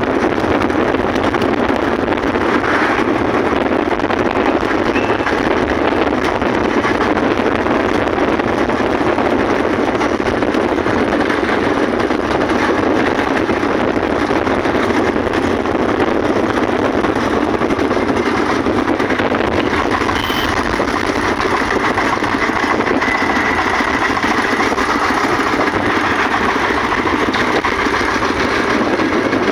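Single-cylinder diesel engine of a công nông farm cart running steadily under way, a loud, even chugging heard from the seat right behind the open engine.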